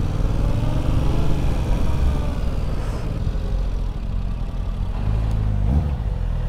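Yamaha R7's 689 cc parallel-twin engine on its stock exhaust, ridden through town. The revs rise in the first couple of seconds, ease off, and pick up briefly again near the end.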